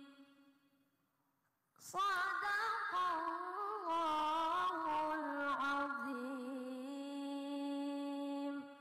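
A boy reciting the Qur'an in the melodic tilawah style into a microphone. After a moment of near silence he sings a new phrase full of quick wavering ornaments, then holds one long note that stops shortly before the end.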